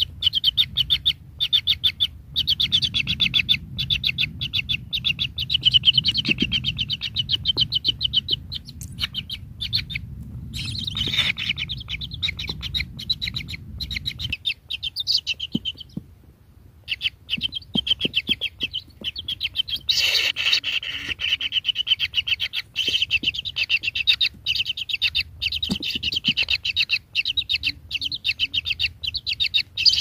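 Kingfisher nestlings in their burrow nest giving high chirping begging calls, fast-repeated and almost continuous, with brief pauses about ten and sixteen seconds in. A low rumble lies under the first half.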